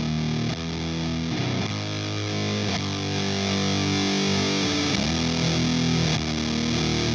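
Electric guitar, a 2005 Gibson SG Standard tuned down to B, played through a Minotaur Sonic Terrors Fuzz and Burn pedal into a Matamp GT120 amp. It plays a slow doom riff of heavily distorted, long-ringing chords, changing chord every second or two.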